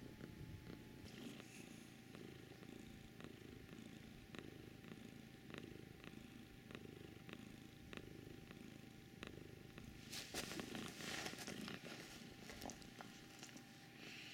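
Kitten purring close up, a faint low pulsing rumble. About ten seconds in, a louder scratchy rustle lasts a couple of seconds.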